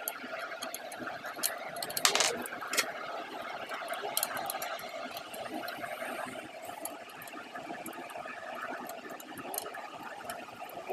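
Scattered sharp clicks and knocks as a flat-panel TV is fitted onto its metal wall-mount bracket, the loudest a clack about two seconds in, over steady background noise.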